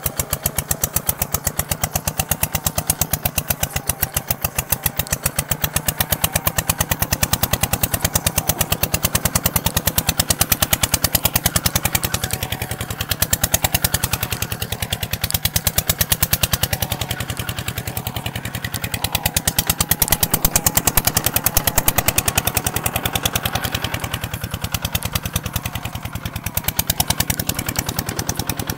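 Kubota ZT 180 diesel engine running steadily, its firing strokes making a rapid, even beat that gets louder and softer a few times.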